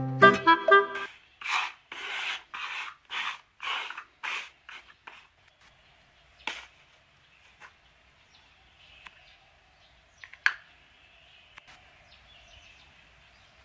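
About eight short scraping strokes, roughly two a second, of plastic cups being slid over a wooden floor, followed by a few scattered faint clicks and taps.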